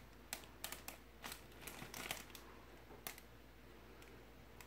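Small clear plastic parts bag crinkling in the hands, a run of faint, irregular crackles.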